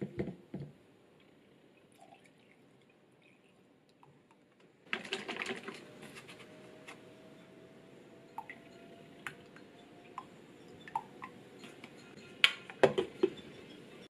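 Light knocks as the electric milk frother's lid comes off. From about five seconds in, milk and cream are poured into the frother jug, with a faint rising pitch as it fills, and a few drips and taps follow. Near the end there are several sharp clicks, the loudest sounds here, as the lid is set back on.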